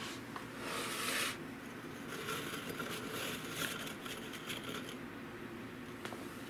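Hands scooping filling-free Oreo chocolate wafers out of a ceramic mug, the dry cookies scraping and rustling against each other and the mug. It is loudest briefly about a second in, then goes on as softer scratchy rustling.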